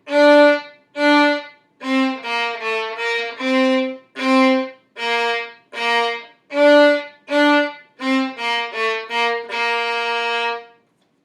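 Violin playing a simple melody in B-flat major as separate bowed notes, mostly even beats with a few quicker pairs of notes, ending on a longer held note.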